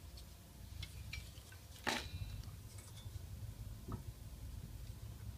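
Small metal parts handled at a workbench: light clicks and one sharper metallic clink with a brief ring about two seconds in, over a steady low rumble.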